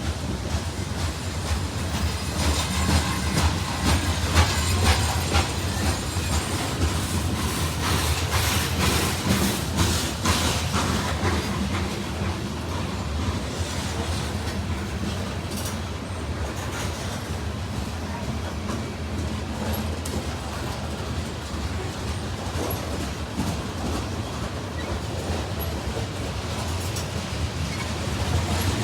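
CSX mixed freight train rolling past, its cars' wheels clattering over the rail joints with a steady low rumble underneath. The clatter is busiest in the first half and evens out into a smoother rolling noise later on.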